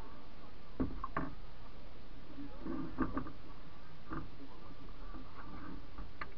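Scattered knocks carried through a canoe's hull as it is paddled, about six over a few seconds, some in close pairs, over steady water noise.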